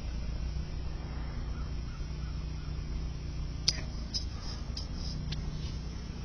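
Steady low rumble of distant highway traffic, with a few short, sharp clicks in the second half.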